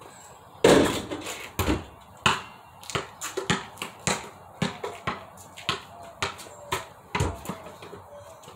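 A basketball shot strikes the portable hoop with a loud bang less than a second in. Then the ball bounces on the ground again and again, about two knocks a second, stopping shortly before the end.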